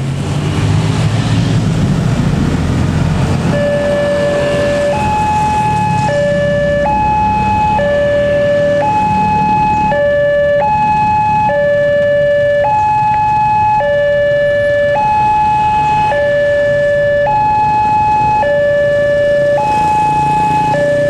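Wantech railway level-crossing alarm sounding a two-tone warning that alternates between a low and a high tone about once a second, signalling an approaching train as the barrier comes down. It starts a few seconds in, after the engine rumble of a passing truck.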